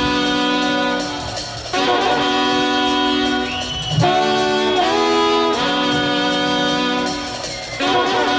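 Live reggae band's horn section of trumpet, saxophone and trombone playing long held chords in a repeating phrase, each chord breaking off about every two seconds.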